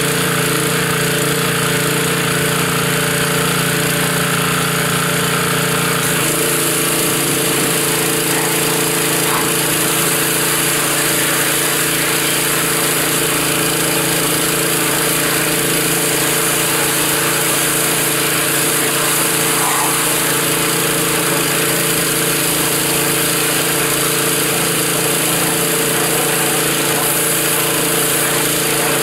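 Gas-engine pressure washer running steadily while spraying, with a hiss of water over the engine's hum; the engine's note shifts about six seconds in.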